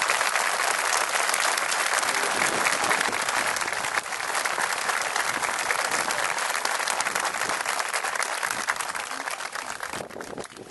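Crowd applauding with dense, steady clapping that dies away near the end.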